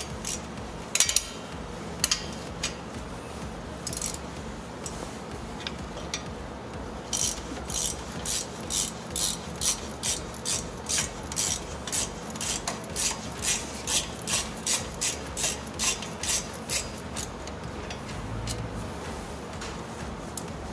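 Hand ratchet backing out a 13 mm rear brake caliper bolt. A few metal clicks and knocks come first, then about ten seconds of steady rasping ratchet strokes, roughly two a second.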